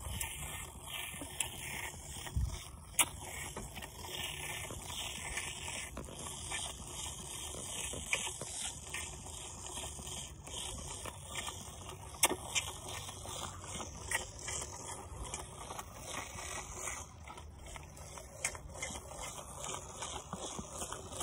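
Highland calf sucking milk from a bottle nipple: irregular slurping and crackling, with a sharp click about 3 seconds in and another about 12 seconds in.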